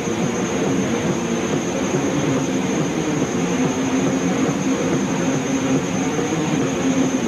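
Loud, steady roar of a live metal concert on an old tape recording: a dense, unbroken wall of noise with no clear beat or melody.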